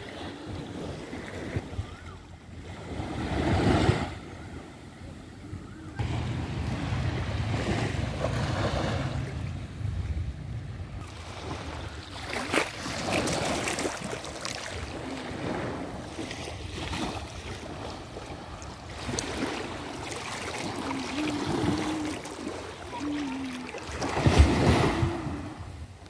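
Small sea waves washing and lapping in shallow water at the shoreline, with wind buffeting the microphone. The wash swells louder a few seconds in and again near the end.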